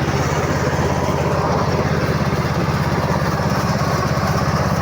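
Mini combine harvester's engine running steadily with a fast, even beat.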